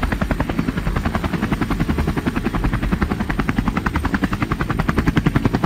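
Ambulance rescue helicopter in flight, heard from inside the cockpit: a steady, fast, even pulsing from the rotor over a constant low drone.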